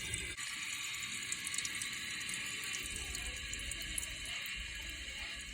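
Toilet tank refilling through its fill valve after the water supply is turned back on: a steady hissing rush of water, easing slightly near the end as the tank reaches full.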